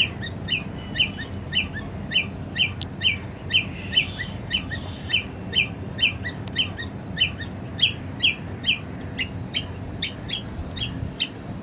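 Squirrel chirping repeatedly in an even rhythm, about two short, high chirps a second, each dipping slightly in pitch.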